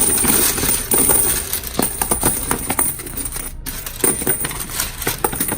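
Loose coins from a bulk candy vending machine's coin box being scooped and shoved into a bag, clinking and jingling with many irregular small impacts.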